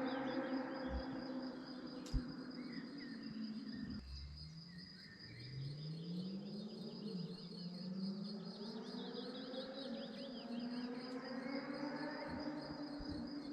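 Kawasaki Z1000's inline-four engine through a LeoVince aftermarket exhaust, heard at a distance: the note holds, drops sharply about four seconds in, then climbs again in a few rising sweeps as the bike accelerates through the gears. Crickets chirp steadily throughout.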